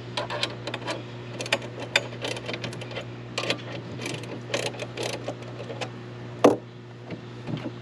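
Wrench working the U-bolt nuts and fittings of a chainsaw mill as its cutting height is reset: a run of irregular small metal clicks and clinks, with one louder knock about six and a half seconds in, over a steady low hum.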